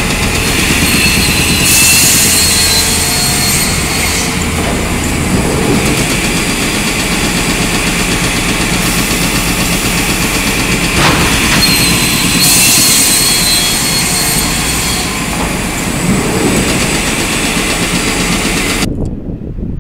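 Schelling panel saw running while it cuts a chipboard sheet: a steady machine noise with a louder, higher-pitched cutting sound about two seconds in and again about twelve seconds in. Near the end the machine sound cuts off abruptly and gives way to wind on the microphone.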